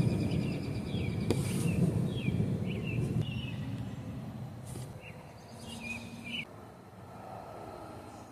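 Birds chirping in short, quick gliding notes, in two clusters, over a low rumble that fades away over the first few seconds.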